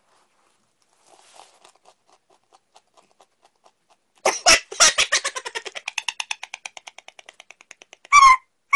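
A young man's pained vocal reaction to the sting of a mouthful of wasabi: a few sharp coughs or exhalations about four seconds in, then a fast stuttering run of breathy pulses that fades, and a short high-pitched whine near the end.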